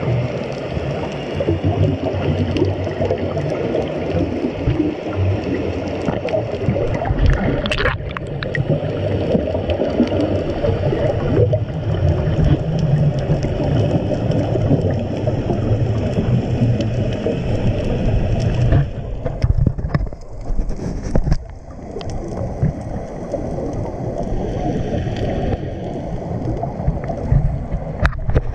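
Underwater noise picked up by a submerged camera: a steady low rumble and gurgling of water around the housing. About two-thirds of the way through it briefly thins out and drops.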